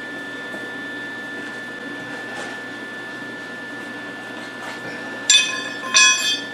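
Tire rubber squeaking twice near the end, sharp and pitched, as a narrow tire folded with a seat belt is forced by hand inside another tire to double it. A steady shop hum runs underneath.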